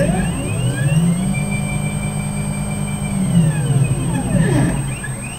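Stepper motors of a CNC gantry driving the thread-laying head across the bed: a whine that rises in pitch as the axis speeds up, holds steady for about two seconds, then falls as it slows to a stop. Another short rise in pitch starts near the end as the next move begins.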